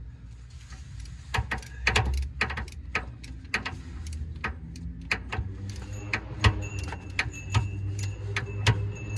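Torque wrench ratcheting as bolts on a VW Vanagon's automatic transmission are tightened to 20 foot-pounds: a run of sharp metallic clicks, a few a second.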